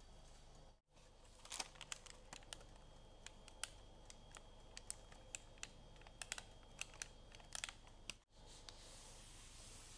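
Parchment paper lining a baked cheesecake crinkling as it is handled, a quiet run of irregular crisp crackles and clicks. The crackles stop near the end.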